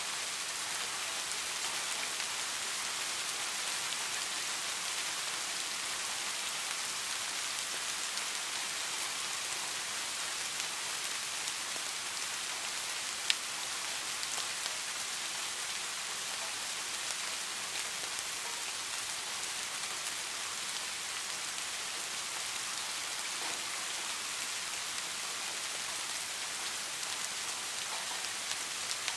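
Steady rain falling, an even hiss of many small drops. One sharp tick, the loudest sound here, stands out a little under halfway through.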